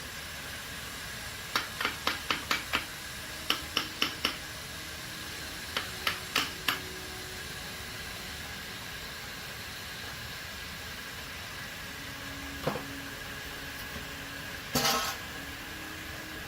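Light metal-on-metal taps in quick runs of four to six, followed later by a single tap and a short scrape of metal, over a steady workshop hiss.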